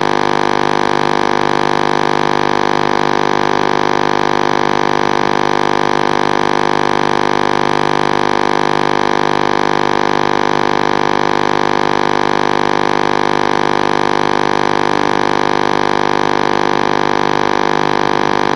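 Steady, unchanging electronic hum made of many fixed tones, picked up on the audio of an FPV quadcopter's analog video link while the quad rests on the ground before takeoff.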